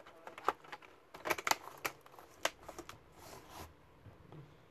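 Dell Inspiron 15 3000 laptop keyboard being pressed down into its palmrest: a string of sharp plastic clicks and snaps as it seats, thickest around one and a half seconds in, followed by a short soft rustle.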